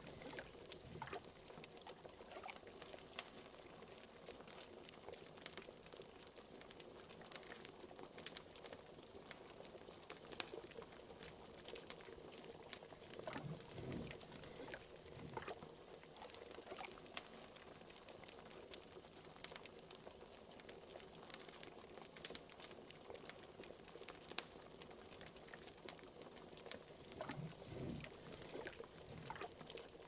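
Liquid bubbling in a pot over a wood fire that crackles with frequent sharp pops. There are a few deeper gurgles, once about halfway through and again near the end.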